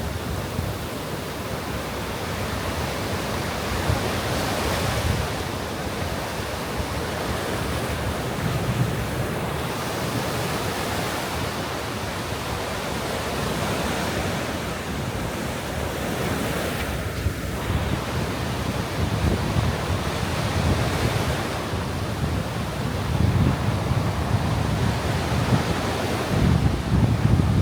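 Sea surf washing on a sandy beach with wind buffeting the microphone; the low gusts grow stronger near the end.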